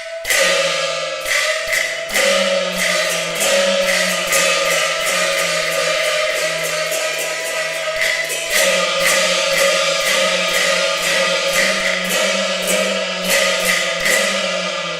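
Peking opera aria in fast flowing meter: a sung voice holds long notes, accompanied by the jinghu and jing erhu, over a dense, rapid beat of sharp strikes.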